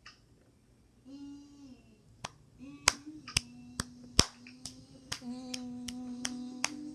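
A run of sharp clicks or snaps, about a dozen, starting about two seconds in and coming faster towards the end, over a steady low pitched buzz or hum that comes in briefly about a second in and then holds from about two and a half seconds on.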